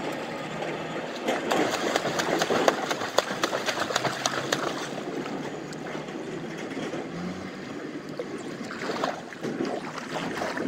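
Swimmers splashing and water lapping close to the microphone at the edge of an outdoor pool, with a run of quick, sharp splashes between about one and five seconds in.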